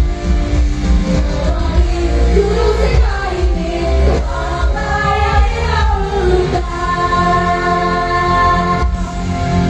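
A rock band playing live, a female singer's voice over electric guitar, bass and drums, holding a long note near the end.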